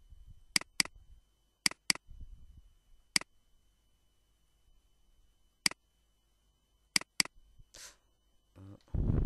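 Computer mouse clicking: eight sharp clicks, several in quick pairs, while wires are placed in a circuit schematic. A short, louder low rushing noise comes near the end.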